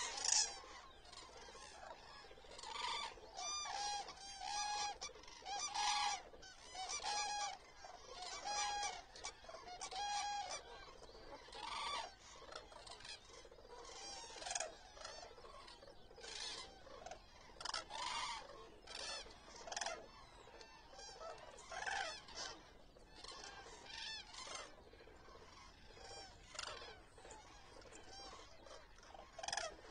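A flock of common cranes calling: short calls with many overlapping, coming every second or so, thickest in the first half.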